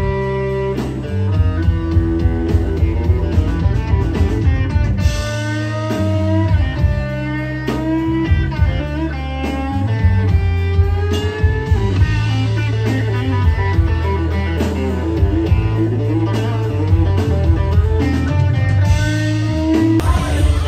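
Live blues-rock band playing: an electric guitar lead with gliding, bending notes over drums and a steady low bass.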